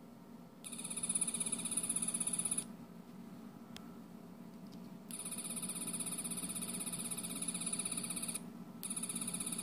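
Pertwee-era sonic screwdriver sound effect, looped by an ATTiny85 chip through a tiny earbud speaker: a buzzing, wavering tone cut on and off by hand, on for about two seconds, off, on again for about three, and back on near the end. It is a little on the quiet side.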